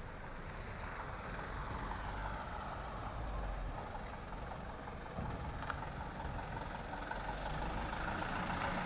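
Truck engine running steadily with a low rumble.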